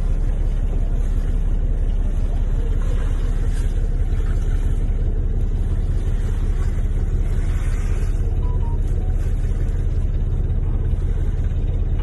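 Boat engine running steadily: a constant low drone that does not change in pitch or level.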